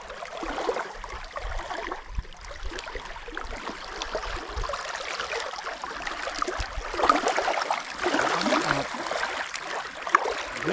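Small wind-driven waves lapping and splashing against a gravel lakeshore, a steady irregular wash with no let-up.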